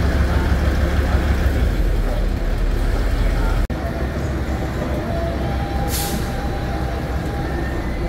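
Busy outdoor ambience: indistinct voices over a steady low rumble, with a momentary dropout a little before halfway and a brief sharp hiss about six seconds in.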